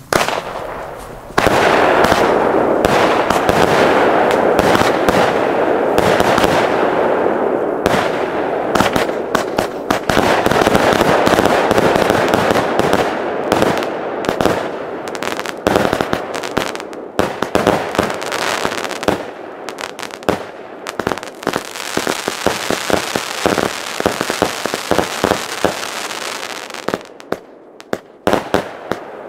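Pyroco Fantasie firework cake firing: a rapid, unbroken barrage of shots launching and bursting into crackling. Near the end it thins out into separate pops as the last tubes go off.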